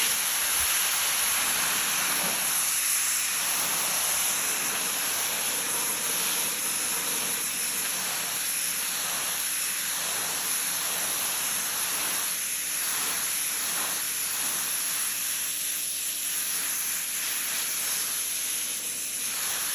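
Pressure washer spray blasting a pair of greasy jeans: a steady, loud hiss that swells and dips now and then in the second half.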